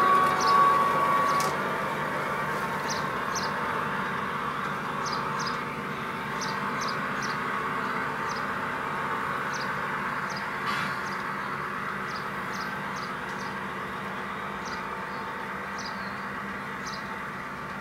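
Piko BR 218 garden-railway diesel locomotive model and its track-construction train running, a steady hum that slowly fades as the train moves away, with a brief steady tone at the start. Small birds chirp now and then.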